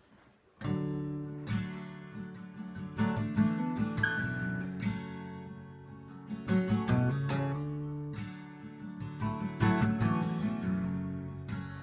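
Acoustic guitar playing the instrumental intro of a song, ringing chords with fresh strums every second or two, coming in just under a second in.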